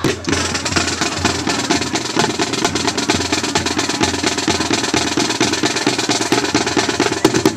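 Marching band drumline playing a fast drum cadence: rapid snare-drum strokes and rolls over regular low bass-drum beats, cutting off abruptly near the end.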